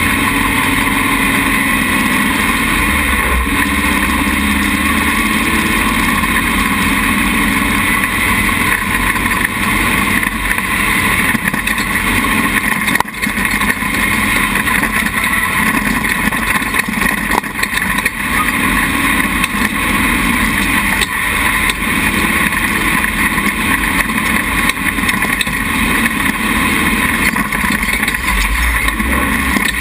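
Dune buggy engine running steadily under load while driving across soft sand, picked up close from the buggy's own frame.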